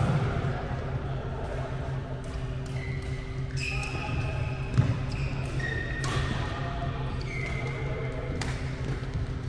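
Badminton rackets hitting a shuttlecock in a series of sharp, irregular strikes, with short squeaks of court shoes on the floor and a heavier thud a little before five seconds. A steady hum runs under it.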